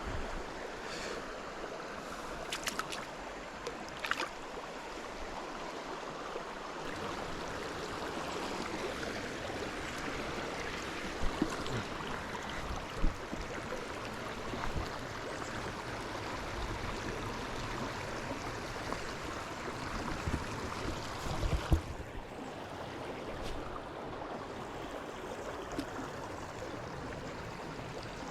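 River current flowing steadily around a wading angler, with a few short knocks standing out above the water noise.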